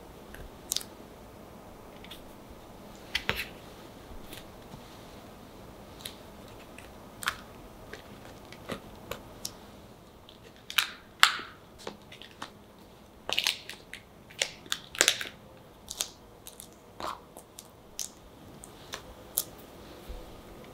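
Scattered light taps, clicks and rustles of hands at work: a metal heart-shaped cookie cutter cutting firm cocoa and condensed-milk dough, and cut chocolate hearts being handled and set down on a baking sheet. The taps come closer together and louder about halfway through.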